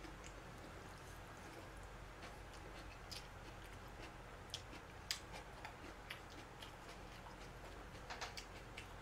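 Faint eating sounds: a few scattered light clicks of chopsticks against plastic takeout containers and soft chewing, over a low steady hum.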